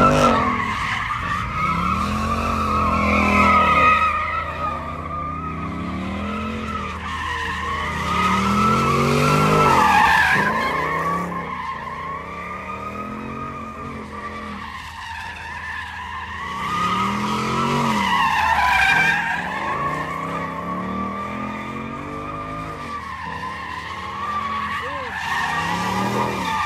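A car doing donuts: the tyres squeal continuously in a high, wavering screech, while the engine revs rise and fall in a repeating cycle as the car spins round.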